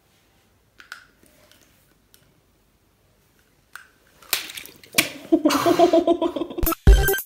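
Almost silent at first, with a few faint clicks; about four seconds in, a girl squeals and laughs in reaction to raw egg running down her head. Loud music with a heavy bass beat starts near the end.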